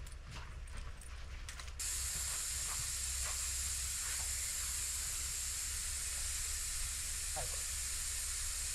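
Air hissing steadily out of a pickup truck's tire valve as the tire is aired down for more traction in deep snow. The hiss starts abruptly about two seconds in.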